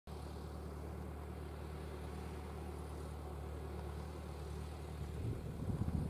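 Fendt 415 Vario tractor engine running at a steady pitch while pulling a mounted four-furrow plough through the soil. Near the end, wind buffets the microphone in gusts.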